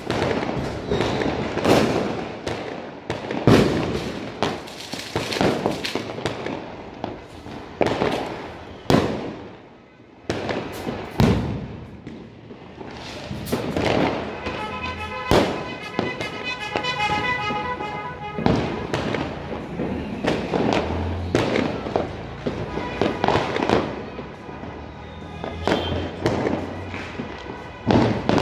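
Diwali firecrackers and aerial fireworks going off one after another: many sharp bangs and cracks of varying loudness, some close and loud, others distant, at irregular intervals.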